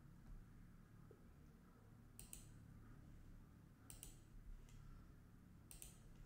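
Near silence: a faint low hum of room tone with three faint, sharp clicks about two seconds apart.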